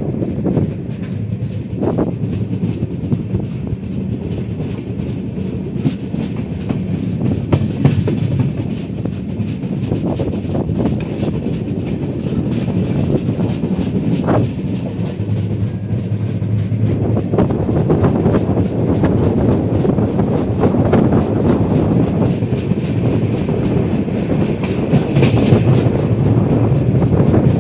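Wheels of the 19031 Yoga Express running over the track, heard from the open doorway of a moving passenger coach: a dense rumble with scattered clicks and thuds over rail joints and points. It grows a little louder toward the end.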